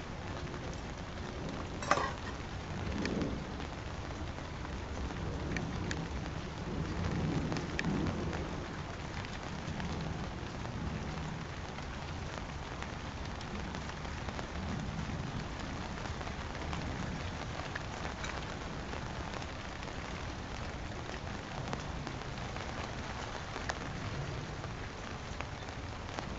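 Steady rain falling on an outdoor patio, picked up by a security camera's microphone, with a single sharp knock about two seconds in.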